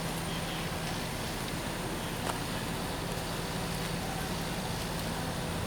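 Steady low mechanical hum over outdoor background noise, with a faint click about two seconds in.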